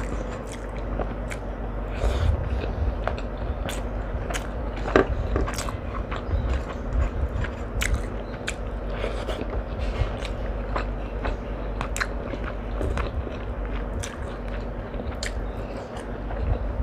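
A person eating close to the microphone: chewing and biting food, with many short, irregular crunchy and wet mouth clicks.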